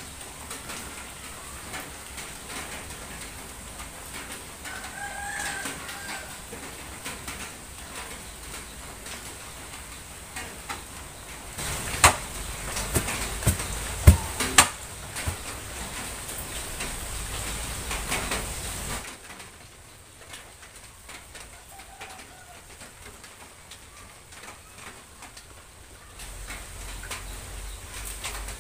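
Several sharp knocks and bumps over about three seconds near the middle as a rolled woven floor mat is handled and stood upright. There is a steady faint hiss throughout, and a faint fowl-like call twice, one early and a fainter one later.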